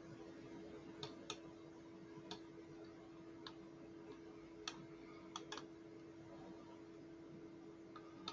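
Faint, scattered clicks of a computer mouse and keyboard, about eight in all, a couple in quick pairs, over a steady faint hum.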